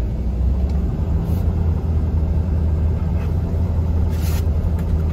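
Steady low engine and road rumble heard inside the cab of a vehicle rolling slowly along a gravel drive. Two brief, faint hisses come about a second and about four seconds in.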